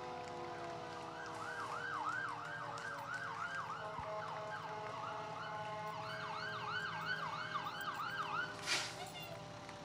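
Emergency vehicle sirens sounding a fast yelp, about four to five sweeps a second, over a slower falling wail; the yelp breaks off briefly in the middle and stops near the end, followed by a short sharp burst of noise.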